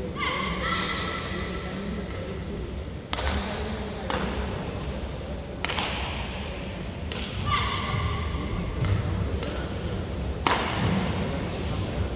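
Badminton rackets striking a shuttlecock in a rally: five sharp cracks, most a second or so apart, the last and loudest near the end after a longer gap. Two spells of high steady squealing sound briefly, once at the start and once about two-thirds through.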